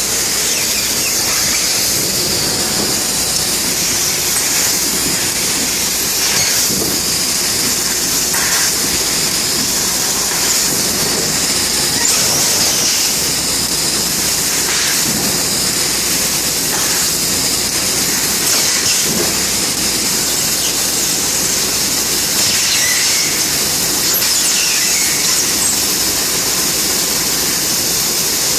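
Bystronic CNC laser cutting machine running, with a steady, loud high hiss.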